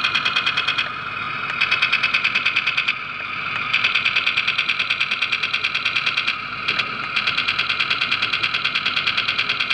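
Toy machine gun on an RC tank firing rapid bursts of electronic gunfire, about six shots a second, with short breaks about a second in, around three seconds in and between six and seven seconds.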